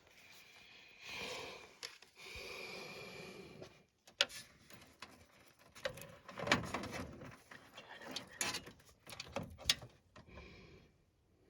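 Two breaths close to the microphone, then a run of small irregular clicks, taps and rustles from hands working PC cables and plastic connectors: the front-panel audio and USB 2.0 leads being fitted to a motherboard.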